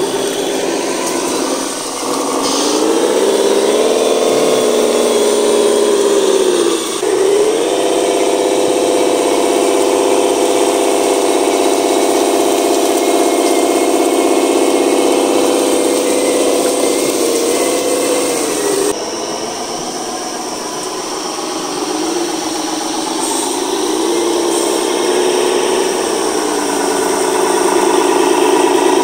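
Radio-controlled model truck's small motor and gearbox whining as it drives, the pitch climbing and dropping with the throttle. It runs at a steady high pitch through the middle, drops off sharply about two-thirds of the way in, then winds back up near the end.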